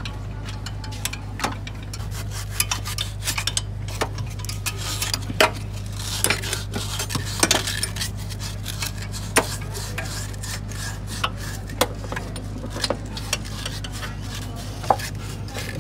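Metal tools and parts clinking and scraping as a mechanic works on a car engine: irregular sharp clinks and taps over a steady low hum.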